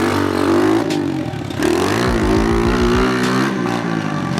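Pit bike engine being ridden, revving up and down several times, its pitch rising and falling with the throttle.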